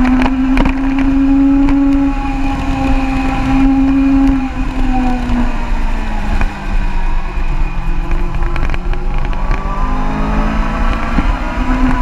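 Sport motorcycle engine running while riding at speed, with wind noise on the bike-mounted camera. The engine note holds fairly steady, dips a little midway, then climbs again near the end.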